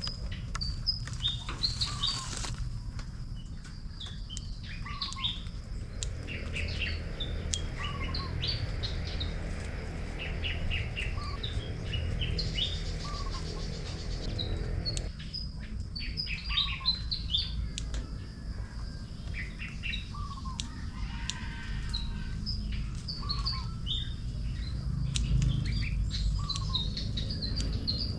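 Small birds chirping and twittering all around, with one short downward-sliding call repeated every couple of seconds, over a steady low rumble.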